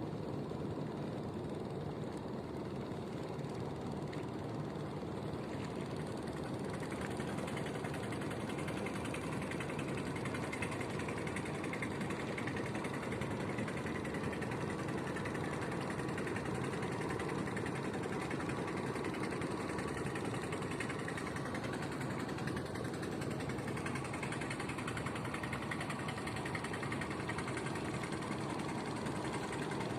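Boat engine running steadily, a constant mechanical hum that gets a little louder about seven seconds in.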